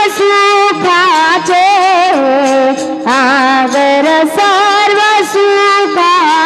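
Devotional abhang singing: a voice holds long wordless notes that slide and waver between pitches over steady held notes, with light percussion strikes recurring through it.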